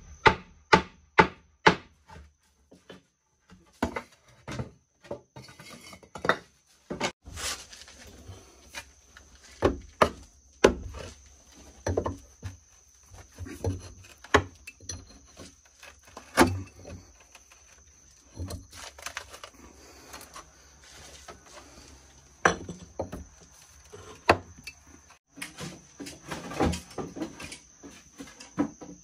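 Irregular series of sharp knocks and thuds: a quick run of them in the first couple of seconds, then scattered single blows, over a faint steady high tone.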